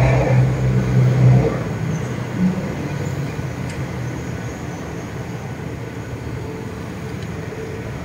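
A vehicle engine running steadily: a low hum that is strongest for the first second and a half, then eases into a steady background rumble.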